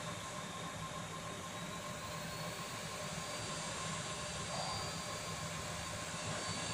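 HIKO 858D hot air rework station running, its handle fan blowing a steady rush of air with a thin steady whine.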